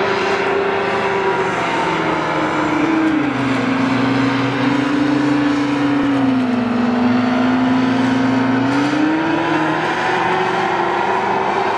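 Small hovercraft's engine and propeller running steadily as it crosses open water, the pitch dropping about three seconds in, dipping lower around six seconds, then rising back near nine seconds.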